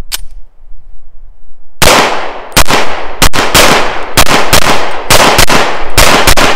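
Llama Max-1 .38 Super, a 1911-style semi-automatic pistol, fired in a rapid string of shots about half a second to a second apart, each followed by a ringing echo. The string begins about two seconds in, after a single sharp click. The magazine holds mixed full-metal-jacket and hollow-point rounds, and the pistol seems to handle the switch between them well, cycling through the string without a jam.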